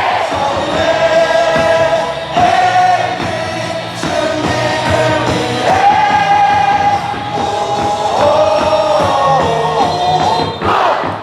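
Large baseball crowd singing a cheer song in unison over amplified stadium music, in long held notes.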